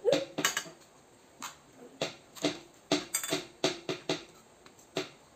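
Irregular short clicks and sucking noises from air drawn through a plastic drinking straw and candy-coated chocolates clicking against the bowls as they are picked up with the straw and dropped.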